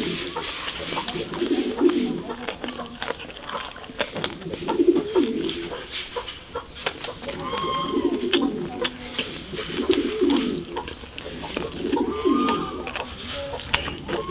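A pigeon or dove cooing over and over, a low coo about every one and a half to two seconds, with scattered light clicks around it.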